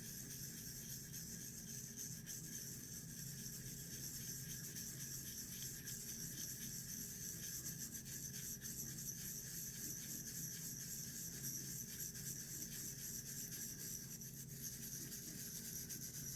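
Small electric polishing tool running steadily as it buffs the copper wick dresser of an antique Aladdin lamp, with a faint rubbing of the part against it; the motor switches off at the very end.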